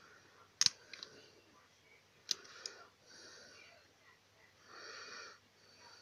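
Plastic Rubik's cube pieces clicking as they are picked up and handled, a few sharp clicks in the first three seconds. A soft breathy hiss follows about five seconds in.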